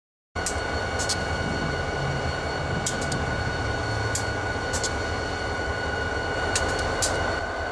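A lashup of EMD SD40-2 diesel locomotives idling, their two-stroke V16 engines giving a steady low rumble with a constant high whine over it and several sharp ticks.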